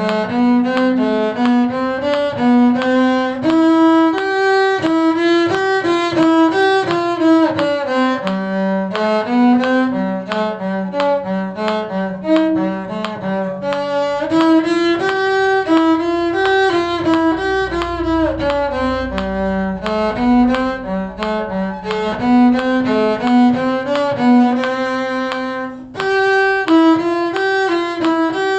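Bowed string instruments playing a tune: a violin melody in distinct notes over a lower cello bass line, pausing briefly near the end before going on.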